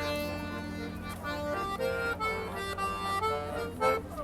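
An accordion playing a melody of held notes over a steady bass note.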